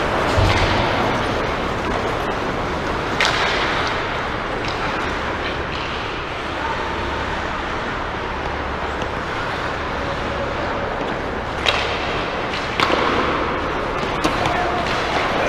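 Ice hockey rink ambience: a steady wash of noise with a few sharp cracks of sticks and puck from play at the far end, once about three seconds in and twice near the end.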